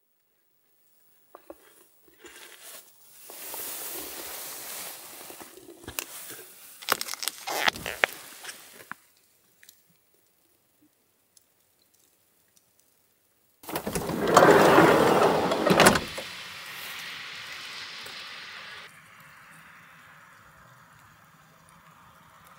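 Someone moving about inside a small van: rustling and scattered clicks and knocks, then a louder rush lasting about two seconds that ends in a knock, followed by a faint steady hiss.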